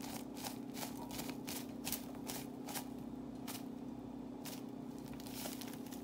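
Momo masala spice powder being shaken out over raw ground chicken: a quick, irregular run of light ticks and crackles, over a steady low hum.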